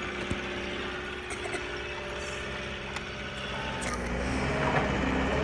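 Steady engine-like drone for a toy Manitou telehandler moving a log. It grows louder and deeper from about four seconds in, with a few light clicks.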